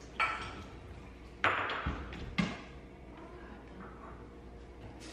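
A few sharp clinks and knocks of dishes and a dishwasher rack, the loudest about one and a half seconds in with a brief ring, then a dull thud and one more knock.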